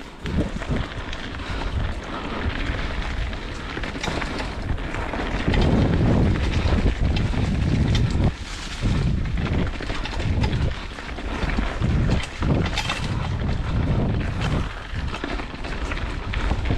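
Mountain bike descending a rough downhill trail: wind buffeting the camera microphone, with tyre noise on dirt and rock and uneven knocks and rattles as the bike hits bumps.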